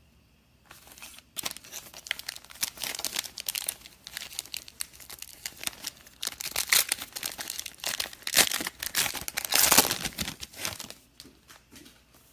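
Plastic wrapping being torn open and crumpled by hand: a dense, irregular crackle that swells loudest near the end before stopping, typical of unsealing a new box of trading cards.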